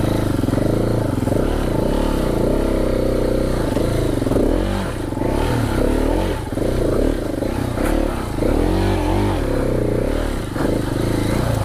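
KTM 690 Enduro R's single-cylinder four-stroke engine under load climbing a dirt hill, its revs rising and falling every second or so as the throttle is worked.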